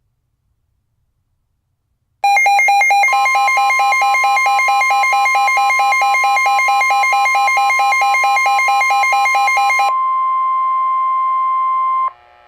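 Weather radio alert: a rapid, pulsing electronic alarm beep starts about two seconds in, and a second later the steady 1050 Hz NOAA Weather Radio warning alarm tone joins it. The beeping stops about ten seconds in, and the tone continues alone until it cuts off abruptly near the end. The tone signals that a warning, here a severe thunderstorm warning, is about to be read.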